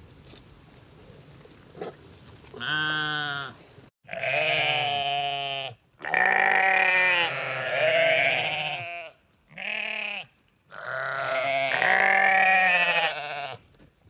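Sheep baaing: a series of five long bleats, one after another with short pauses between them, starting about three seconds in.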